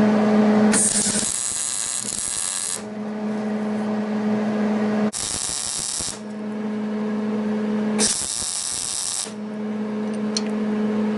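Arc welding steel: three short tack welds, each a burst of steady hiss, about two seconds, one second and just over a second long. A steady low hum runs between them.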